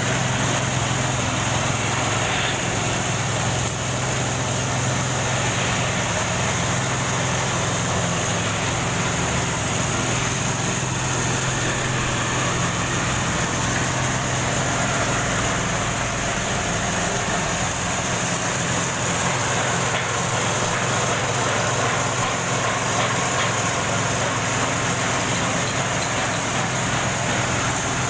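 Belt-driven sugarcane juice press running steadily, its drive motor and crushing rollers giving a constant low mechanical hum.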